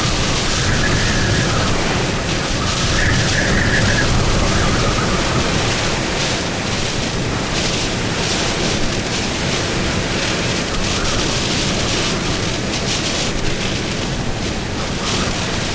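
Hurricane-force winds of Hurricane Ida's back eyewall rushing and gusting, buffeting the microphone with a deep rumble, with brief high whistling in the first few seconds.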